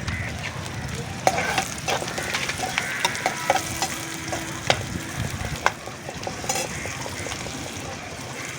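Coconut oil sizzling in a pan on a wood-fire stove as the contents are stirred, with a metal spoon clicking and knocking against the pan several times in the middle.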